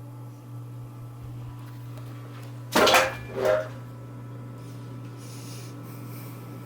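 Lasko (Sears) Turn of the Century ceiling fan running with a steady low hum. About three seconds in, two short loud sounds half a second apart cut in over it.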